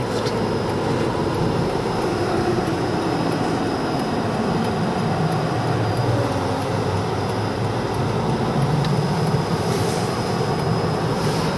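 Steady engine and tyre road noise inside the cabin of a moving car, an even rumble with no change in pace.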